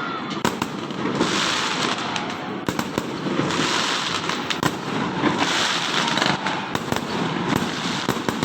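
Fireworks and firecrackers going off continuously: rapid overlapping bangs and pops, with waves of hissing crackle about every two seconds.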